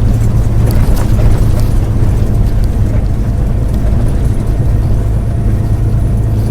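Truck engine droning steadily while driving a bumpy dirt road at about 35 mph, with a few rattles and knocks in the first second or so.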